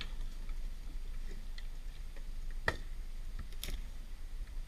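Machete chopping at tree branches: scattered sharp clicks and knocks, the two loudest about two and a half and three and a half seconds in, over a steady low rumble.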